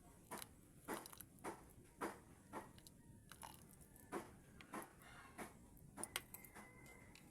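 Someone eating and chewing, soft mouth clicks and smacks about twice a second.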